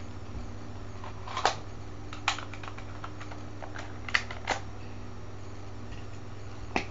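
A handful of sharp, irregular clicks and taps of small objects being handled, over a steady low hum.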